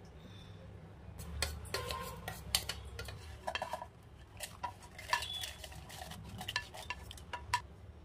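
Steel mixer-grinder jar and bowl clattering: ground powder knocked out of the jar into a steel bowl, then dry-roasted red chillies scraped from a pan into the empty steel jar with a spatula. A run of light metallic clinks, knocks and scrapes, some ringing briefly.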